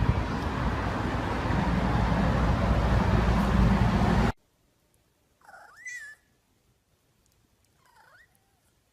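A cat meowing: one drawn-out meow rising in pitch about halfway through, and a faint short meow near the end. Before that, a loud steady noise cuts off suddenly.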